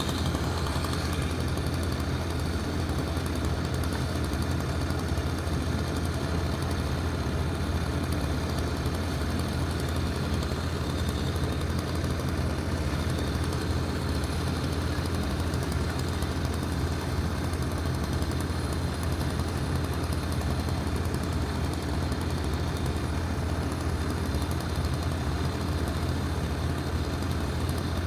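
A heavy engine running steadily at an even pitch, most likely the tree crew's truck or equipment idling.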